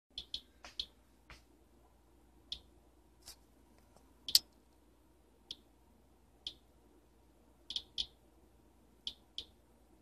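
RadAlert Inspector Geiger counter clicking at irregular intervals, each sharp click a detected radiation event, the loudest about four seconds in. It is registering a background count of about 52 counts per minute, which the owner finds unusually high.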